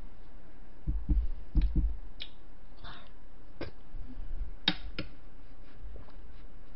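Eating sounds: a wooden spoon scooping shaved-ice dessert from a cup, with a cluster of low thumps between one and two seconds in and scattered sharp clicks, the loudest a little before five seconds.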